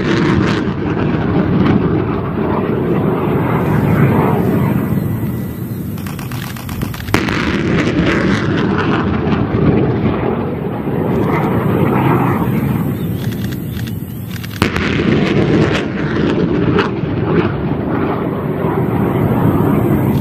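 Rocket-motor roar of an M28A1 reduced-range practice rocket launched from a HIMARS: a loud, continuous rushing rumble. It falls off and then cuts back in abruptly twice, about 7 and 15 seconds in.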